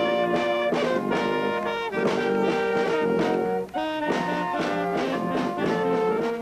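Brass band music: several brass instruments playing a tune together, with a brief break about two thirds of the way through.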